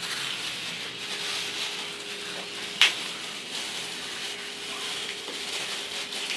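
Plastic supermarket bag wrapped around a guava rustling and crinkling as it is handled and untied, with one sharp click about three seconds in.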